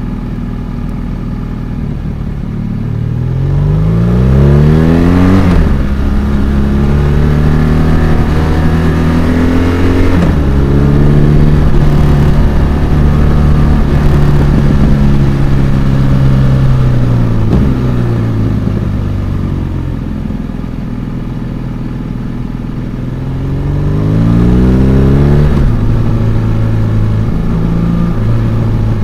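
BMW R1200RS LC's liquid-cooled boxer twin under hard acceleration: the revs climb steeply and drop sharply at an upshift about five seconds in, shift again around ten seconds, ease off slowly through the middle, then climb and shift once more near the end.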